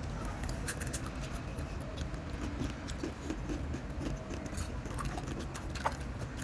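Close-up chewing and crunching of hard, dry snack noodles, heard as scattered short, crisp crackles.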